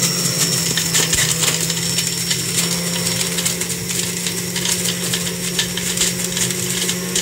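Philips Quickclean HR1863 centrifugal juicer running steadily as it grates sweet lime (mosambi). Its motor hum sits under a dense, rapid patter of clicks from pulp and seeds hitting the spinning sieve basket.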